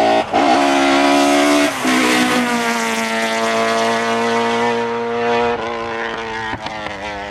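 Rally car engine passing at full throttle, shifting up twice in the first two seconds. It then holds a steady note as it pulls away and fades, lifting off near the end.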